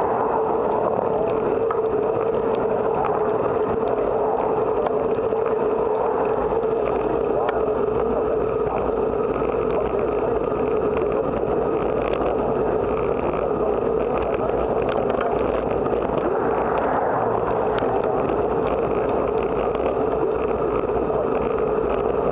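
Steady wind rush and road noise while riding a bicycle, picked up by a camera mounted on the bike, with a steady hum underneath and faint scattered ticks.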